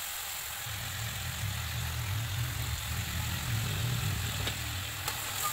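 Onion, chicken and shrimp frying in a wok with a steady sizzle. Under it, from about a second in, a low steady hum.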